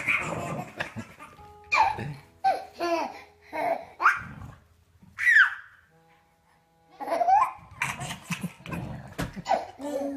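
A baby laughing in short repeated bursts of belly laughs and giggles, pausing briefly about six seconds in before laughing again.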